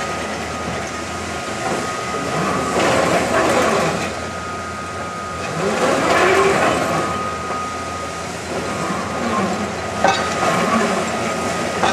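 A 5 cubic-metre electric rope shovel working: steady machine noise with a thin constant whine, a pitch that rises and falls around six seconds in, and a sharp clank about ten seconds in.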